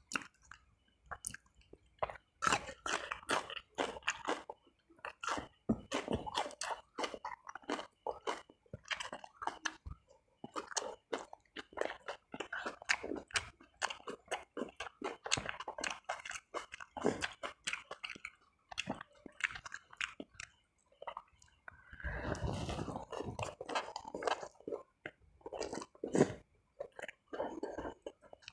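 Close-miked mukbang eating: a man chewing and biting spicy meatballs and raw leafy greens, with many short crunchy, wet mouth sounds.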